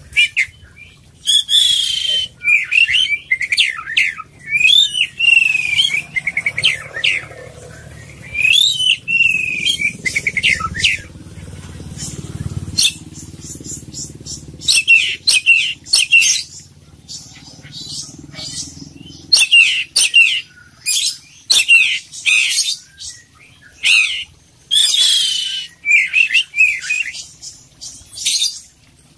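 Oriental magpie-robin (kacer, the pied 'poci' form) singing, full of mimicked notes from other birds. It sings loud bursts of varied whistles and chatter, one phrase every second or two with short pauses between. A low rumble runs under the first two-thirds and fades out.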